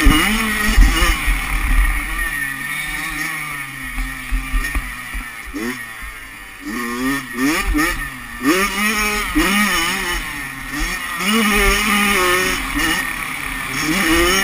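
Kawasaki 85cc two-stroke motocross bike engine at full race throttle. The pitch drops and stays low for a few seconds, then climbs and falls again and again as the rider opens and closes the throttle and shifts. Wind rumbles and bumps on the microphone underneath.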